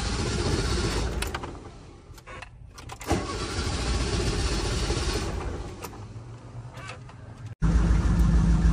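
Cold start of a hard-starting Fiat 147: the starter cranks the engine for about two seconds without it catching, stops, then cranks again for about two and a half seconds. Near the end the sound cuts abruptly to the engine running steadily.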